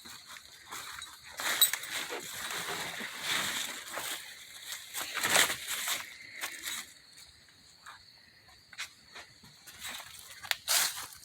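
Insects chirping steadily in a high tone, with irregular rustling, crunching and clicking noises over it, the loudest about a second and a half in and again around five and a half seconds.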